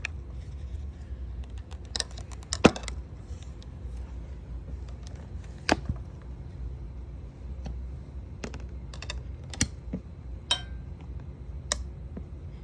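Metal tire spoons clicking and knocking against a dirt bike wheel rim as the tire bead is levered over the rim edge: scattered sharp clicks, with one louder knock about two and a half seconds in.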